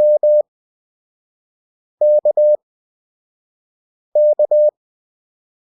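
Morse code practice tone, a steady beep near 600 Hz, sending letters at 20 WPM character speed with long Farnsworth gaps between them. Three letters sound about two seconds apart: M (dah-dah), then K (dah-dit-dah), then another K.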